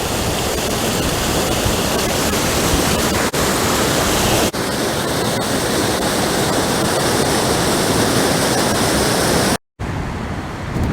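East Dart waterfall rushing, a steady loud noise of falling water, the river running high after heavy rain. It cuts out for a moment near the end, and a quieter, duller rush follows.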